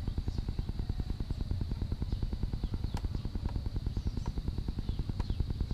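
A small engine running steadily with a fast, even low throb. A steady high insect drone, scattered bird chirps and a couple of light clicks sit over it.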